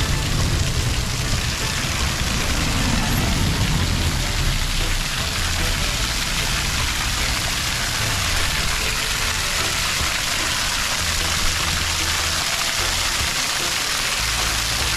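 Steady hiss of falling water, with the bass notes of a music track underneath.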